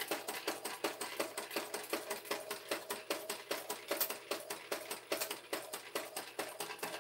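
TechSew 2750 Pro cylinder-arm walking-foot industrial sewing machine stitching a seam at a slow, steady pace, the needle and feed giving a rapid, even clacking of about five or six strokes a second.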